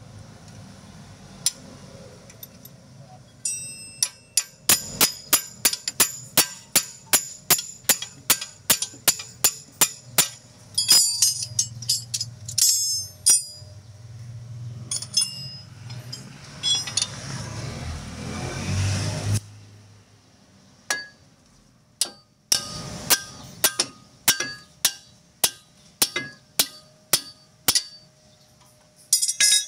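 Repeated hammer blows on metal, each with a brief high ring: a steady run of about two a second, then scattered groups of strikes. Midway, a louder rushing noise builds for a few seconds and cuts off suddenly.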